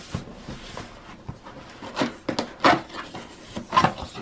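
Cardboard box being turned over and opened by hand: the top flap pulled open with irregular rubbing and scraping of cardboard, loudest about two seconds in and again near the end.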